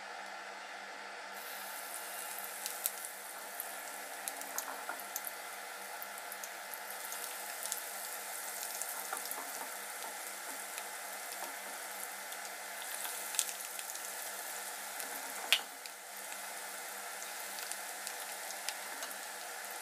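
Parsley-and-egg fritters frying in a pan of hot oil, a dense sizzle with crackles that starts about a second in. Scattered pops run through it, and there is one sharp knock about three-quarters of the way through.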